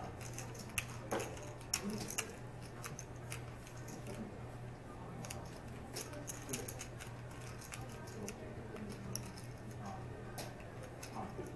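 Poker chips clicking as they are handled and stacked at the table: many small, irregular sharp clicks, some in quick clusters, over a steady low hum.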